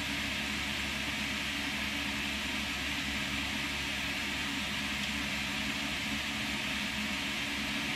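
Steady background noise: an even hiss with a faint low hum underneath, unchanging and with no distinct events.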